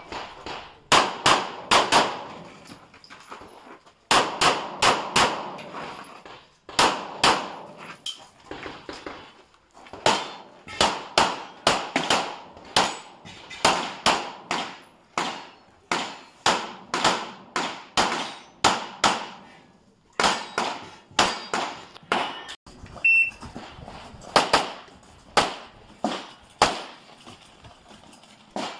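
Pistol shots fired in rapid strings, dozens of sharp cracks, many in quick pairs, with short pauses between strings. A short electronic beep from a shot timer sounds about 23 seconds in, just before a new string of shots.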